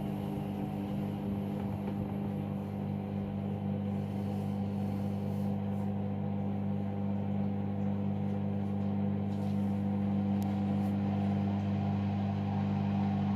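Hoover All In One washing machine running with a steady, even hum that grows slightly louder toward the end.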